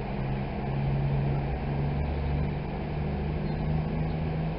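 Class 220 Voyager diesel multiple unit pulling out, its underfloor diesel engines running with a low drone that rises slightly in pitch in the first couple of seconds.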